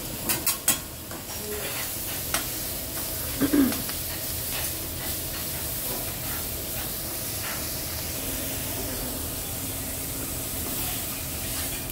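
Food sizzling on a hibachi griddle, a steady hiss, with a few sharp clicks near the start and another about two seconds in.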